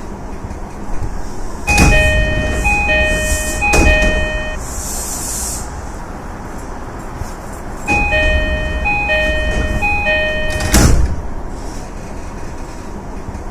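E233 series train door chime: two runs of three two-note chimes, each a higher note dropping to a lower one, about six seconds apart. Sliding doors thud during the first run and shut with a thud just after the second.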